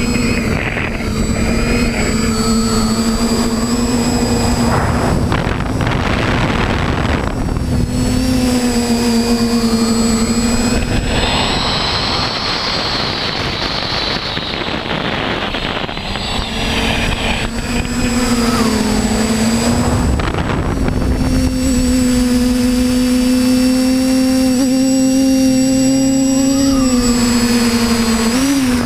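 Electric motors and propellers of a camera drone, heard from the camera on board: a loud steady buzzing hum with a high whine, its pitch wavering and dipping as the motors adjust. A rushing of wind over the microphone swells over it a few seconds in and again in the middle.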